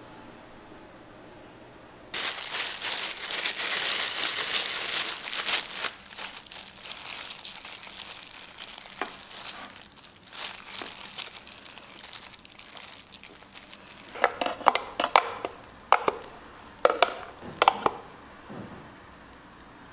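Disposable plastic gloves crinkling, with crumbs rustling, as a croffle is pressed and rolled in a plate of crumbs; the noise starts suddenly and is loudest for about four seconds, then thins to scattered crackles. Near the end come a handful of sharp clinks and taps.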